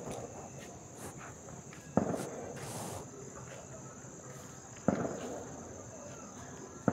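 Handling noise from hands working through a dog's fur to pick off ticks close to the phone: soft rustling broken by three sharp knocks a few seconds apart. A steady high whine runs underneath.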